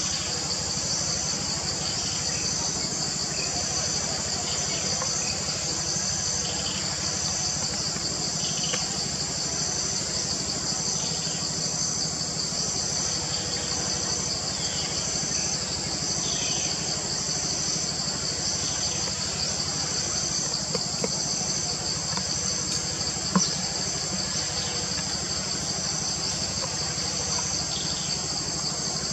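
Steady high-pitched buzzing of a forest insect chorus, continuous with a regular pulse in it, with faint short chirps over it and one sharp click about three quarters of the way through.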